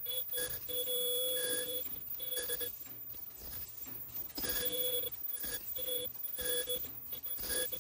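Automatic N95 mask-making machine running, its mechanisms clattering continuously. Short, pitched ringing tones come about once or twice a second, typical of ultrasonic welding heads sealing the mask fabric.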